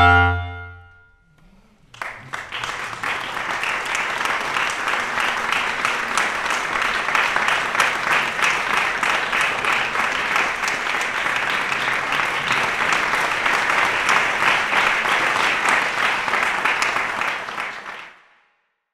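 Trio of basset horns holding a final chord that dies away within the first second. After a short pause, an audience applauds for about sixteen seconds.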